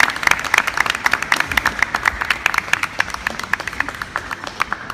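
Spectators clapping for a point just awarded in a kendo bout. The applause is dense at first, then thins out and dies away near the end.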